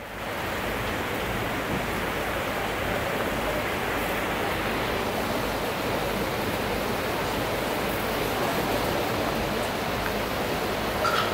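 Large audience applauding, the clapping dense and even, swelling up quickly at the start and holding steady. A brief high note is heard near the end.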